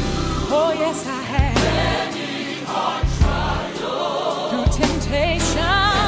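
Gospel music: a choir singing with a vibrato lead voice over bass and drums.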